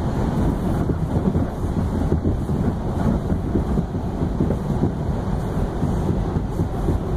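Inside an R142 subway car running express through the tunnel: a loud, steady low rumble of the wheels and running gear with a rough, rattling texture.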